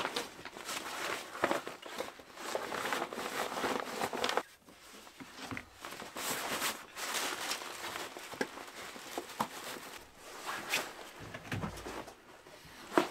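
Nylon gear rustling and crinkling as a bag is stuffed into a backpack, with occasional knocks and a lull midway; by the end the loaded backpack is on the hiker's shoulders.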